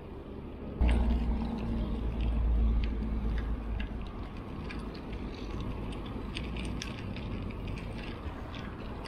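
Wind buffeting the microphone and a road bike's tyres rolling on asphalt, a low rumble that jumps up suddenly about a second in and then holds. Scattered light ticks and rattles from the moving bike run through it.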